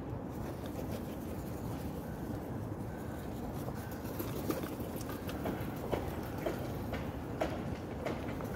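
Outdoor ambience: a steady low rumble, with a series of short sharp clicks and taps starting about halfway through.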